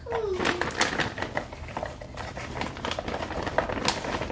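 Frozen pineapple chunks tipped into a blender jar, making a run of irregular hard clicks and clatters. A brief falling whine sounds right at the start.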